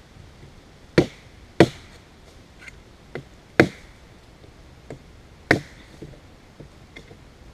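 Small knife chopping into a wooden branch to cut a notch: four sharp strikes, irregularly spaced, with lighter taps between them.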